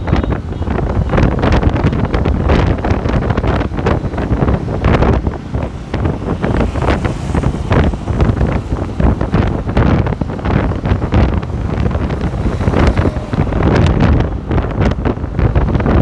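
Strong wind buffeting the microphone of a rider moving at speed, loud and gusty throughout, with road and traffic noise underneath.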